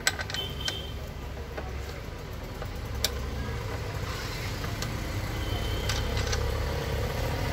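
A vehicle engine idling with a steady low rumble that grows louder toward the end. Over it come a few sharp metal clicks, the strongest at the very start and about three seconds in, from hands and tools working at the battery's clamp and terminals.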